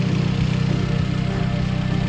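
Car engine idling steadily, an even low hum with no change in speed.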